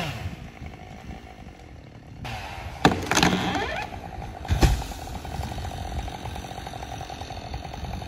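A felled tree trunk crashes to the ground: two heavy impacts about three and four and a half seconds in, the first a sharp crack. A chainsaw idles steadily underneath.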